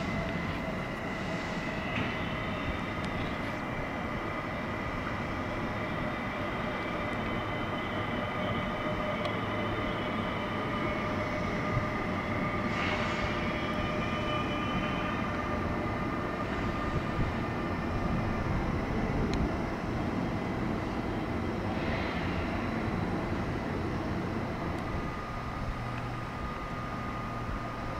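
RB 45 regional train running in the station: a steady rail rumble with several high, steady whining tones over it, and two brief hisses about 13 and 22 seconds in.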